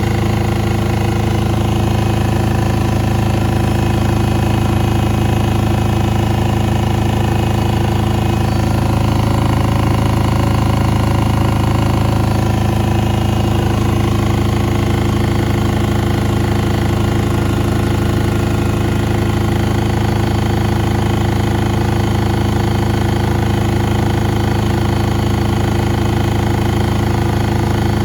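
Washing machine running with a steady, loud motor and drum hum that holds unchanged throughout.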